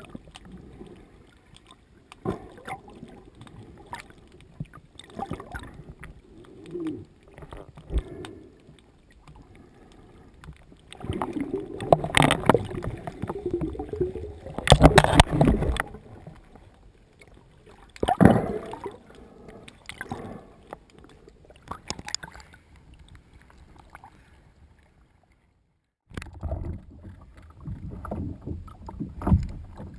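Sound through an action camera held underwater: scattered muffled knocks and bumps with rushes of water noise, loudest in a few short bursts. Near the end, after a brief drop to silence, the camera comes up into the air and water splashing and lapping at the surface take over.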